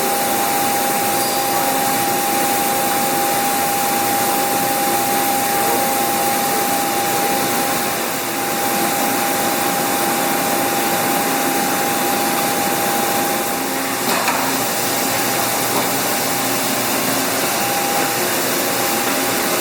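Large horizontal jig mill running under power: a steady mechanical whir with a constant high-pitched hum that stops shortly before the end, and a single light click partway through.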